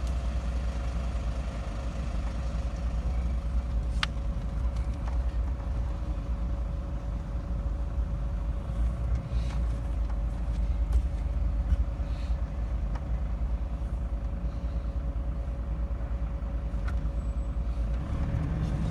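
Steady low rumble of a camper van on the move, with a constant hum over it and a single sharp click about four seconds in.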